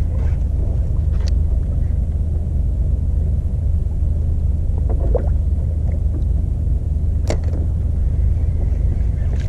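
Steady low rumble of the kayak's 2-horsepower outboard motor running, with a few faint clicks.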